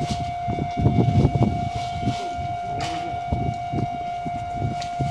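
Japanese level-crossing warning bell sounding steadily while the crossing is active. Low, irregular rumbling and knocks run beneath it, loudest about a second in.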